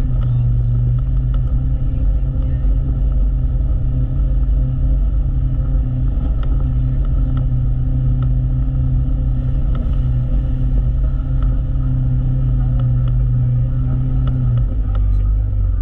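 Side-by-side UTV engine running steadily while driving, heard from inside the open cab, with scattered light clicks and knocks. Near the end the engine note drops slightly.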